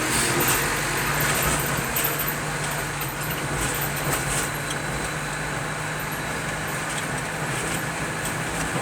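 A road vehicle travelling along a road: a steady low engine hum under continuous road and tyre noise.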